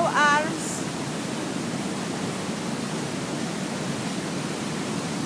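Large waterfall rushing: a steady, even roar of falling water. A short voice sound is heard right at the start.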